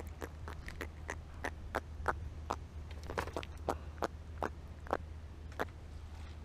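Handling a small jack crevalle out of the water: a run of sharp, irregular clicks, about two a second, over a steady low wind rumble on the microphone.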